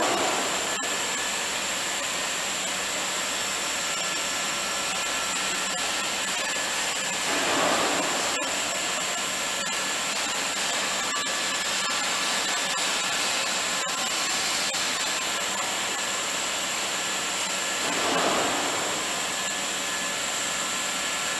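HDPE pipe extrusion line and its pipe coiler running: a steady whirring, blowing machine noise with a constant high whine on top, swelling briefly a few times.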